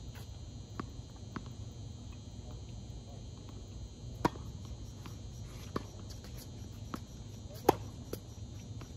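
Tennis ball on a hard court: two light bounces as the server readies, then the serve about four seconds in and a quick rally of racquet hits, the loudest near the end. A steady low hum runs underneath.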